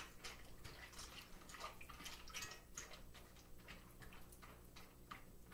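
Faint, irregular clicks and wet sloshing of a silicone spatula stirring pasta and vegetables in water in a skillet.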